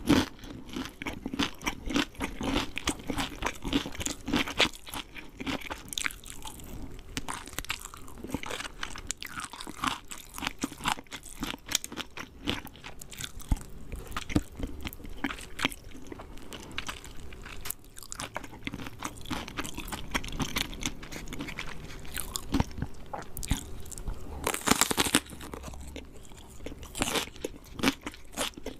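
Close-up crunching and chewing of crispy fried chicken: the breaded skin crackles in dense, irregular bites, with a burst of louder crunches about 25 seconds in.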